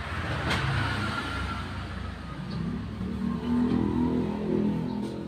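Honda Vario 125 scooter's single-cylinder engine running, revving up about three seconds in and easing back, with a click near the start.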